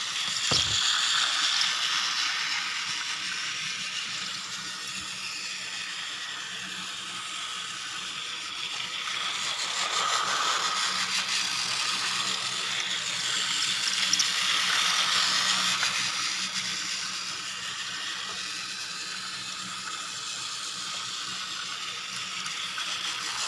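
Battery-powered Tomy toy train running on plastic track: a steady whir of its small electric motor and gears with the rattle of wheels on the track, swelling louder twice as it passes near.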